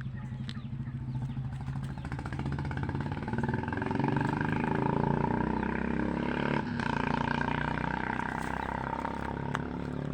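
A motor vehicle's engine running close by, its steady pulsing drone swelling louder through the middle and dipping briefly a little after six seconds in.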